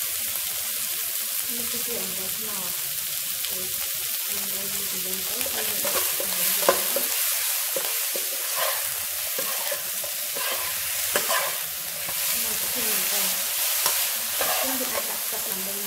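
Chicken pieces sizzling in a nonstick wok while a metal spatula stirs and turns them. The frying hiss is steady, and about a third of the way in the stirring picks up, with irregular scrapes and knocks of the spatula against the pan.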